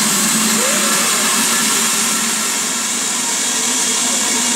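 BR Standard Class 4MT steam locomotive standing with steam hissing loudly and steadily, a constant high-pitched rush of escaping steam.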